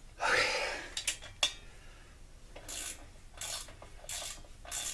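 Anvil hold-down bolt being tightened with a ratchet wrench: a loud scrape and a couple of clicks, then even rasping ratchet strokes about one and a half a second.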